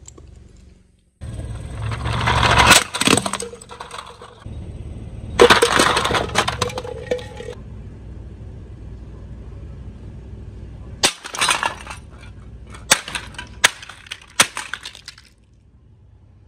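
Plastic toy cement-mixer truck cracking and crunching apart in two spells in the first half, then a string of sharp hammer blows on its broken plastic pieces against concrete.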